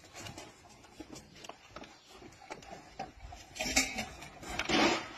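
A pack of beagles moving about and feeding at a trough: scattered light clicks and knocks, with two short, louder rushing sounds in the second half.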